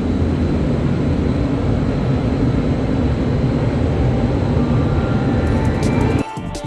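Paint spray booth air-handling fans running with a steady, loud rush of air, heaviest in the low range. It cuts off abruptly about six seconds in as music starts.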